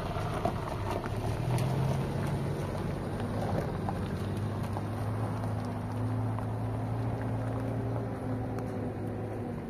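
An engine running with a steady low hum, stopping near the end.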